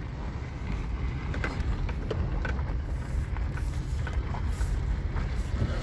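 Car driving slowly over a rough dirt street, heard from inside the cabin: a steady low rumble of engine and tyres with scattered short clicks and knocks.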